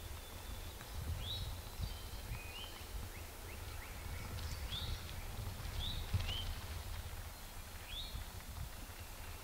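Songbird calling in woodland, short high chirps repeated every second or so, over a steady low rumble.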